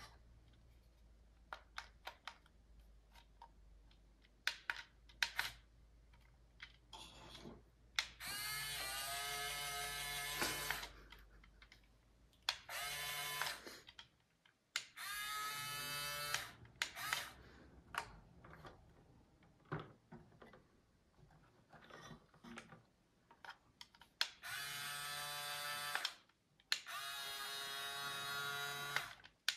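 Small electric gear motors of a Huina RC toy loader whining in five short runs of one to three seconds each, each spinning up to a steady pitch and then stopping. Light clicks from the remote and handling between the runs.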